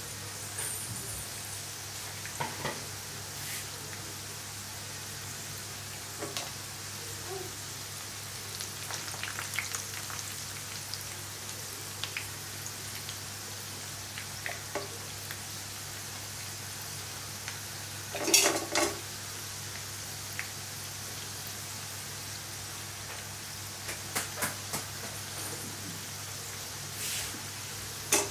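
Batter-coated cauliflower florets shallow-frying in sunflower oil in a nonstick pan: a steady sizzle with scattered pops and crackles, the loudest burst about two-thirds of the way through.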